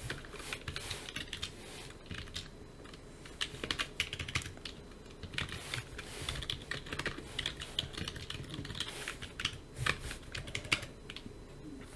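Typing on a computer keyboard: irregular runs of key clicks, in short bursts with brief pauses between them.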